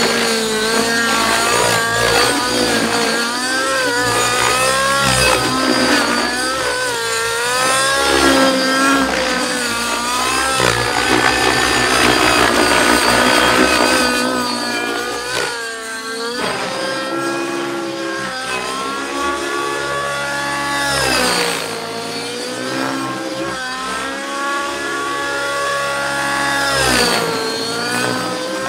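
MSH Protos 700 Nitro radio-controlled helicopter in aerobatic flight: its nitro glow engine and spinning rotor, the engine note sweeping up and down in pitch again and again as it climbs, turns and passes.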